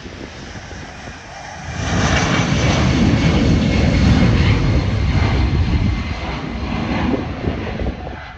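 Airbus A380 jet engines passing close, a loud noise that rises sharply about two seconds in, holds, and eases off near the end.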